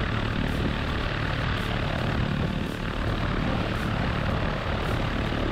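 Piper Colt's four-cylinder Lycoming engine and propeller running steadily as the light plane taxis over a grass strip, heard from outside the airframe as a dense, even rush of engine and propeller noise.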